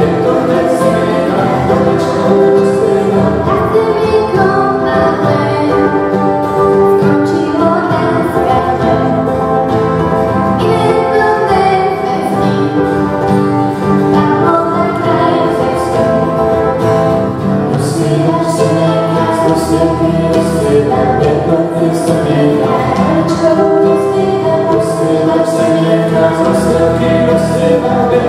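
A Slovak folk-style song sung by a woman and a man with a girl's voice in harmony, accompanied by acoustic guitar and ukulele.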